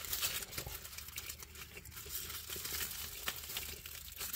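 Paper food packaging crinkling as it is handled, a steady run of small crackles.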